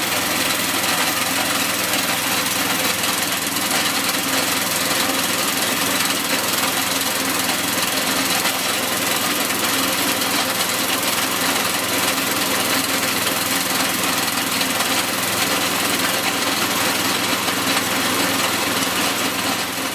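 Brand-new Predator 212cc single-cylinder OHV engine (a Honda clone) running steadily on a snowblower, just started on the first pull and not yet broken in.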